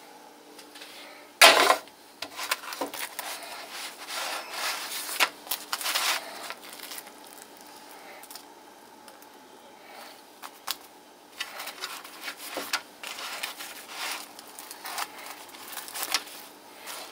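Irregular scraping and rubbing with clattering handling noises, a sharp knock about one and a half seconds in, over a faint steady hum.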